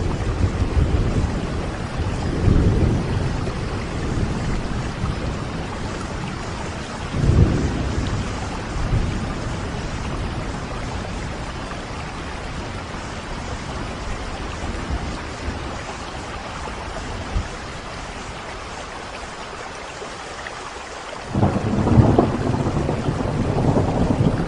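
Steady heavy rain with rolls of thunder: low rumbles swell a few seconds in and again around seven seconds, the rain eases for a stretch, then a loud thunderclap breaks in near the end and rumbles on.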